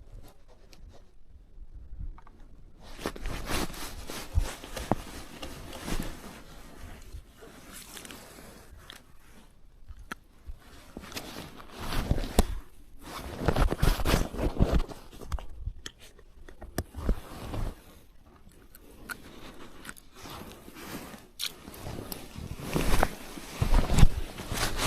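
Irregular scraping, crunching and rustling of close handling noise, in uneven bursts with louder clusters about twelve seconds in and again near the end.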